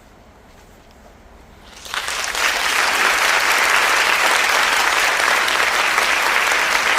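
Applause from many hands clapping, starting abruptly about two seconds in and holding steady.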